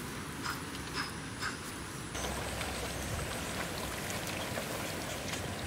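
Footsteps brushing through tall grass, about two a second, then after a cut a steady rushing hiss near a muddy water channel.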